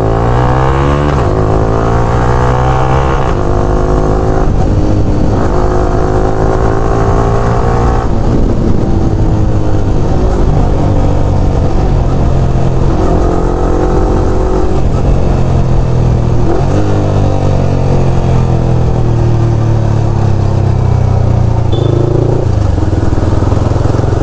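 Yamaha R15M's 155 cc single-cylinder engine running through an aftermarket Akrapovic exhaust while riding. Its pitch climbs through the gears and drops back at each shift several times.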